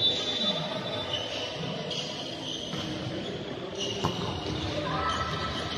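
Sneakers squeaking in short chirps on a hardwood gym floor and a volleyball struck or bounced once about four seconds in, over a low murmur of players in a large echoing gym.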